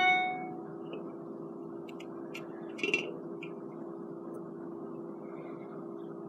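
An aluminium drink can clinks against a hard tabletop as it is set down tilted on its bottom edge, ringing briefly. A few faint taps and a soft knock follow about three seconds in, over a steady low hum.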